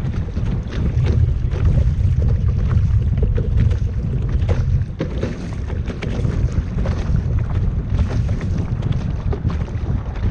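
Wind buffeting the microphone in a steady low rumble, with scattered small splashes of water around a sea kayak.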